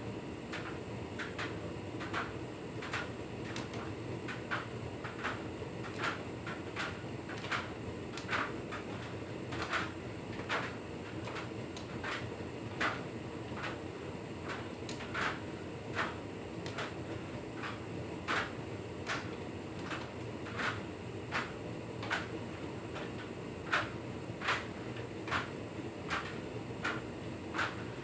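Hotpoint Ultima S-Line tumble dryer running, a steady hum overlaid by irregular light knocks and clicks, about one or two a second, from the load tumbling in the turning drum.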